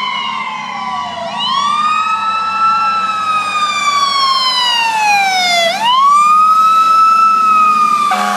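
Ambulance siren on a slow wail: each long downward sweep of about four seconds snaps quickly back up to the top, twice, over a steady low engine hum as the ambulance responds on a call.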